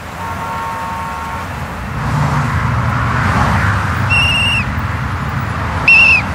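A traffic police officer's whistle blown twice, two short steady blasts about two seconds apart, the second louder, over the steady noise of passing city traffic.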